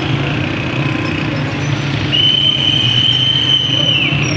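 An engine runs steadily with a low pulsing rumble. About halfway in, a long, high, steady tone like a whistle blast sounds for about two seconds and dips slightly in pitch as it ends.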